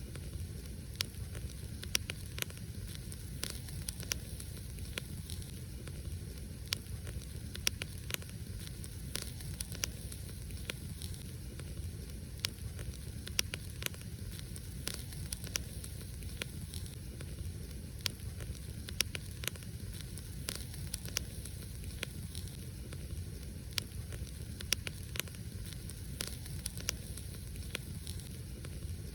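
Wood fire burning steadily: irregular sharp crackles and pops over a low rumble of flames and a faint hiss.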